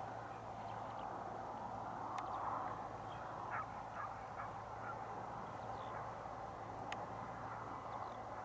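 Faint, distant animal calls over a steady outdoor hiss, with a few short sharp calls about three and a half to four and a half seconds in.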